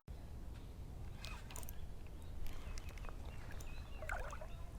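Faint outdoor ambience: a low steady rumble of wind with a few short, quiet chirps scattered through it.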